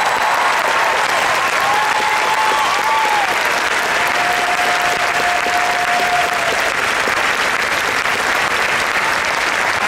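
Large arena audience applauding steadily. A single held note carries faintly over the clapping for a couple of seconds around the middle.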